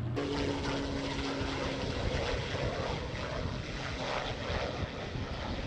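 Propeller engine of a fire-fighting air tanker flying low overhead, a steady loud drone with a couple of held tones in the first two seconds.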